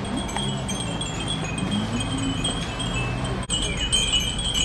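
Many Japanese glass wind-bells (fūrin) tinkling in the wind, a constant overlapping shimmer of small high rings.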